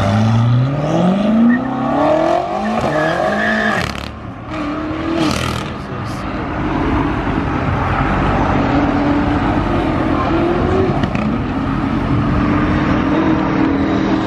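A car engine pulling hard, its note climbing steeply with a gear change about four seconds in. After that a Dodge Charger's engine is held at high, fairly steady revs, rising slowly and dipping again a couple of times.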